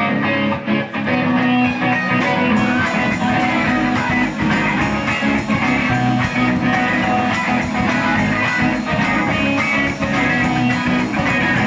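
Punk rock band playing live, electric guitar to the fore, with no singing. The sound fills out higher up about two and a half seconds in.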